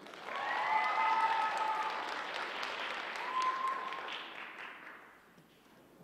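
Audience applauding with a couple of drawn-out cheers, the clapping dying away about five seconds in.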